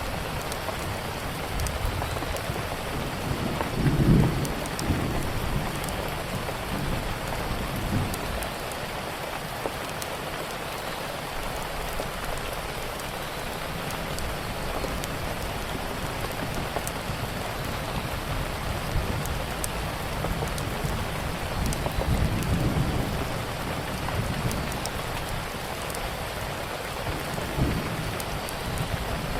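Steady heavy rain with small sharp crackles of a wood fire scattered through it. A few short low rumbles come about four seconds in, again at eight, and twice in the last third.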